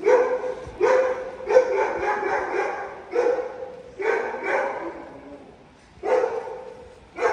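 A dog barking repeatedly, about eight loud barks at uneven intervals, each starting sharply and fading within about half a second.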